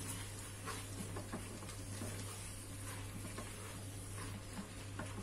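Silicone spatula stirring squid pieces with onion and wine in the non-stick bowl of an electric multicooker set to sauté: quiet scattered scrapes and soft clicks over a faint sizzle, with a steady low hum underneath.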